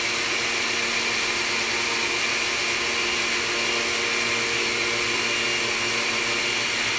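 Countertop blender running steadily, its motor holding a constant pitch over an even whirring noise, as it blends a thick mix of frozen pineapple, pineapple juice and vanilla ice cream that is nearly done.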